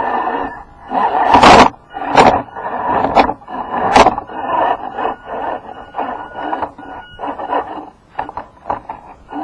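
Jeep JK crawling over a rocky dirt trail: tyres and chassis crunching and scraping on rock, with four sharp knocks in the first four seconds and a faint high whine around the middle.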